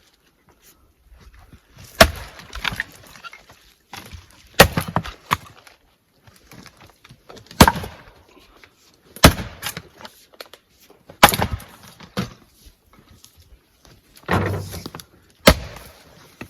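Splitting axe chopping firewood rounds: six sharp strikes a couple of seconds apart, each followed by smaller knocks of the wood splitting and falling, with a duller thud just before the last strike.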